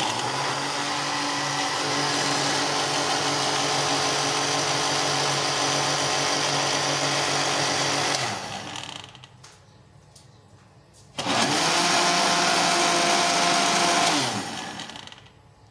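Panasonic mixer grinder motor running with its blender jar, blending gram flour and lassi into a batter. It runs steadily for about eight seconds and winds down; after a short pause a second, shorter run starts abruptly and winds down again.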